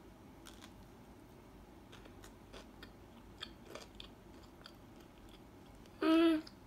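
Close-miked biting and chewing of a ham and cucumber sandwich on soft milk bread: faint scattered mouth clicks and crunches of cucumber. About six seconds in comes a short, louder hummed vocal sound.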